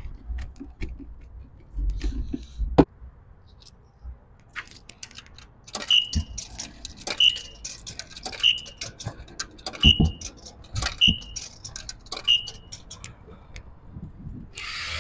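Self-serve car wash pay station being fed coins: a metallic clink and a short high beep about every second and a bit, six times in a row. Before that, a few knocks and rattles of handling.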